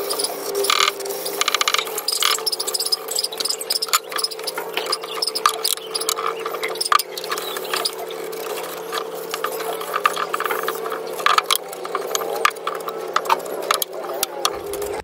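Sandpaper rubbed by hand over pallet-wood boards: irregular scratchy rasping strokes during final sanding with 240-grit paper. A steady hum runs underneath.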